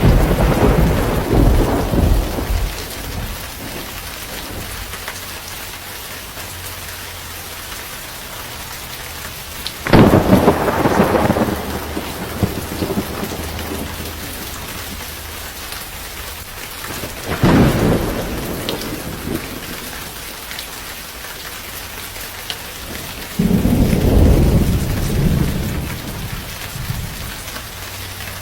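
Steady rain with thunder: loud claps that fade out over a second or two come right at the start, about ten seconds in and around seventeen seconds, and a longer rumble follows some twenty-three seconds in.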